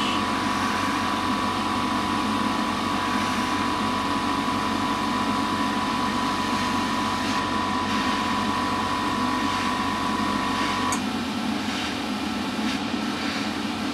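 Hobby spray booth extractor fan running steadily, with the air hiss of a Harder & Steenbeck Infinity CR Plus airbrush spraying paint. A steady whine in the mix cuts off suddenly about eleven seconds in.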